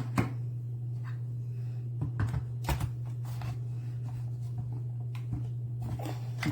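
Scattered light clicks and knocks of a plastic wall-outlet space heater being handled and fitted to a wall outlet, over a steady low hum.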